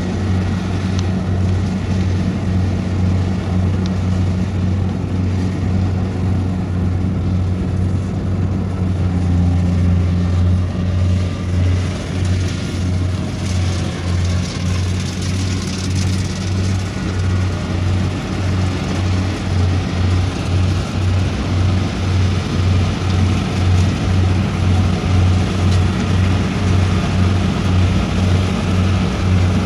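Kubota combine harvester running while cutting rice: a steady low diesel engine drone with a regular pulsing beat in the second half.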